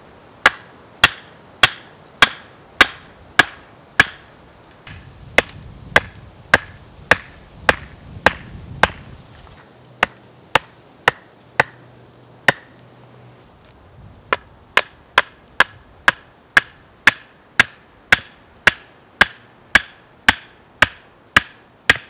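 A hand tool striking something solid over and over, sharp blows about two a second in four runs with short pauses between them; each blow rings briefly.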